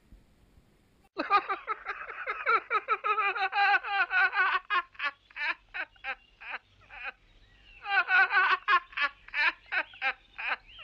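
Laughter in two bouts: runs of rapid 'ha' pulses that thin out and slow, the second bout starting about eight seconds in.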